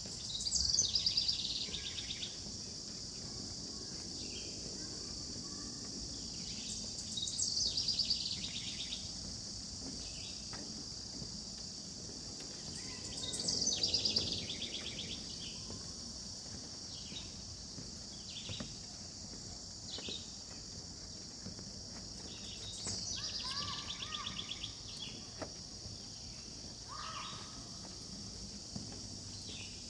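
Steady high-pitched chorus of summer insects, with a bird repeating a short, falling trill four times.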